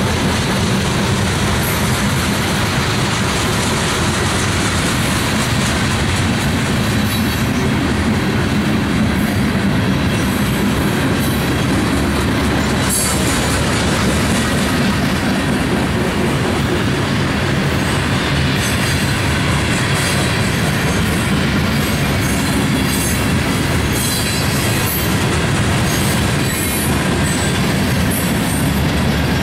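A freight train's tank cars and covered hoppers rolling steadily past close by: a continuous rumble of steel wheels on the rails, with brief high-pitched wheel squeals now and then.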